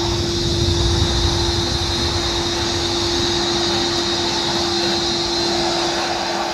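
Vacuum cleaner running steadily with a high motor whine, its floor nozzle pushed over carpet, with a low rumble in the first couple of seconds.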